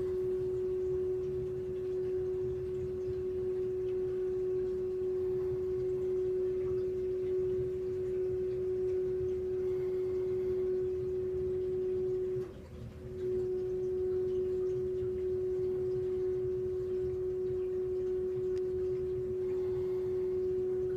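NIBE heat pump giving off a steady, single-pitched hum, broken by a brief drop about two thirds of the way through. It is an unwanted noise that recurs several times a day and that repeated service visits have not cured.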